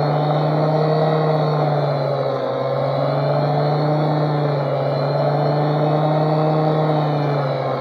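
An electric power tool's motor running steadily with a strong hum, its pitch sagging slightly now and then as it is loaded.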